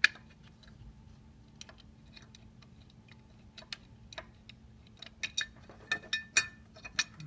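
Light metallic clicks and clinks of a small bolt and a cast gearbox cover being handled and fitted on a lathe's feed gearbox. The clicks are scattered at first and come thicker over the last two seconds.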